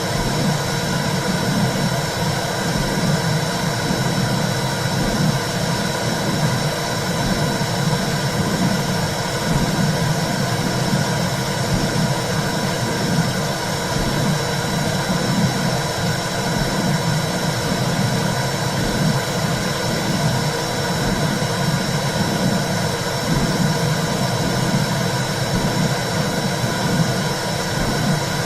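Womb sound: a steady low whooshing rush, like blood flow heard inside the uterus, that swells in a slow, regular pulse. A thin, faint steady whine sits above it.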